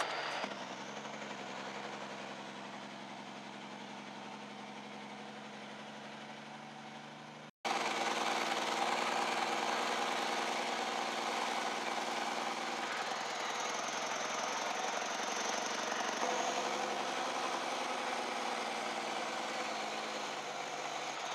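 Heavy diesel truck engine running steadily, heard from inside the cab, with gravel-road and rattle noise. After a brief dropout about seven and a half seconds in, it comes back louder and noisier.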